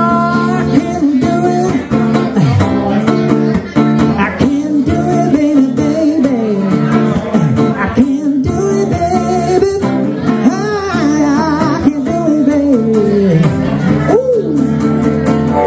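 A male singer singing a song live, with sliding and held notes, over his own acoustic guitar.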